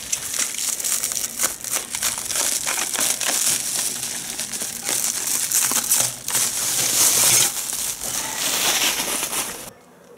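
Clear plastic stretch wrap being pulled and torn away by hand, a dense, continuous crinkling crackle that stops abruptly near the end.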